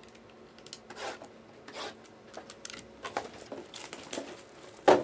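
Hands unwrapping and handling a sealed trading-card box: plastic wrap rustling, crinkling and tearing in short scraping strokes, with one sharp knock near the end.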